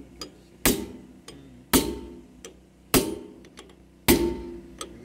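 Hammer blows on steel, four heavy strikes a little over a second apart, each with a short metallic ring and lighter taps between. The hammer is driving the small taper roller bearing onto the pinion shaft of a Hyundai R215L excavator's swing reduction gearbox.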